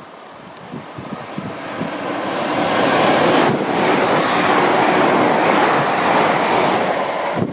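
Express train passing through at speed without stopping: a rushing noise that builds over the first few seconds and then holds loud. Wind buffets the microphone underneath.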